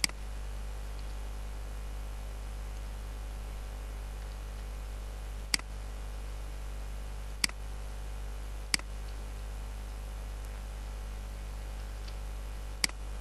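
A handful of short, sharp computer mouse clicks, spaced one to four seconds apart, over a steady low electrical hum.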